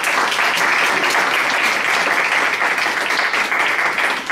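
A small audience applauding: steady, dense clapping that holds throughout.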